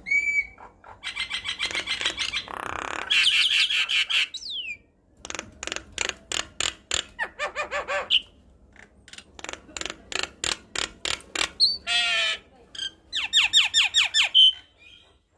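Javan myna (jalak kebo) singing a long, varied song: quick rattling runs of clicking notes, harsh squawks and a few short whistles, broken by brief pauses.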